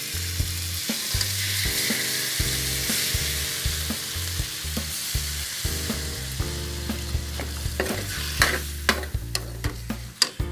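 Minced chicken sizzling as it fries in a metal wok, with tomato sauce going in. Near the end a metal spoon stirs it, clicking and scraping against the pan.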